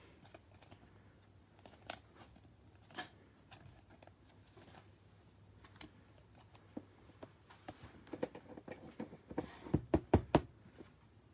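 Trading cards being handled and laid down on a tabletop: faint, scattered taps and clicks, with a quicker run of sharper taps near the end.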